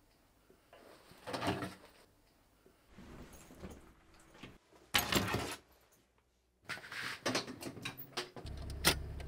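A series of short handling and rustling sounds with clicks and a door, the loudest a sharp clatter about five seconds in. A low hum comes in near the end.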